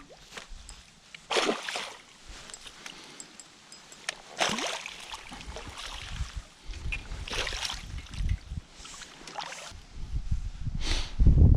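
Water splashing and sloshing in short surges about every two to three seconds, with wind rumbling on the microphone, strongest near the end.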